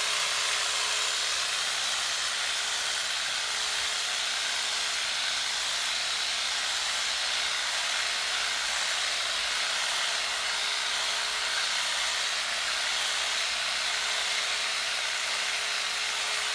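Corded electric hedge trimmer running steadily as its blades clip the side of a low hedge: a constant motor hum over an even buzzing hiss.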